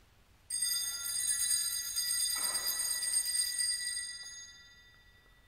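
Altar bells ringing at the elevation of the chalice, marking the consecration. A bright ringing of several high tones starts suddenly about half a second in, carries on for about three seconds, then dies away.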